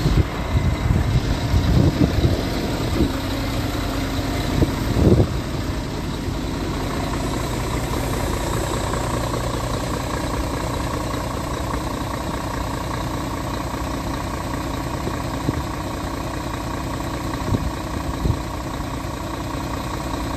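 Scania R480's 13-litre inline-six diesel engine idling steadily. A few loud thumps come over it in the first five seconds.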